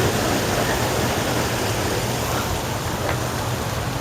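Waterfall running: a steady, even rush of falling water with no break.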